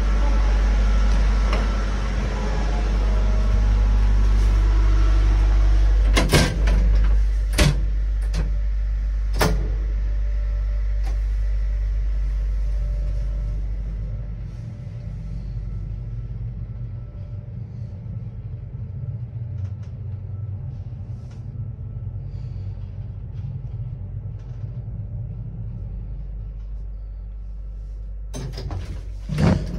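Elevator running: a loud steady low hum with a few sharp clunks of doors and latches between about six and ten seconds in, then a quieter hum while the car travels, and a door clatter near the end as it arrives.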